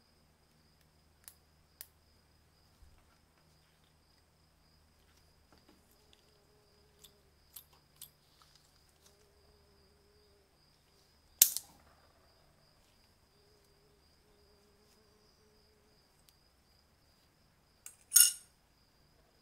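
Quiet handling of small metal lighter parts and tools, with a few light clicks and two sharp, loud snaps, one about halfway through and one near the end.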